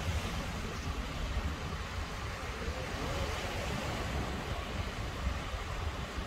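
Gentle surf washing onto a sandy beach, a steady wash of noise, with wind buffeting the microphone in a low, uneven rumble.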